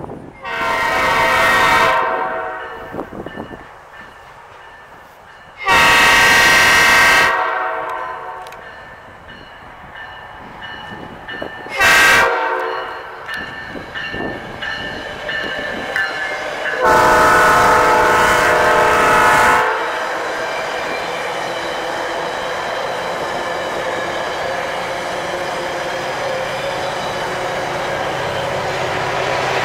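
Locomotive air horn sounding the grade-crossing signal: two long blasts, one short, one long, as a train nears a road crossing. The train then passes with a steady noise of wheels on rail.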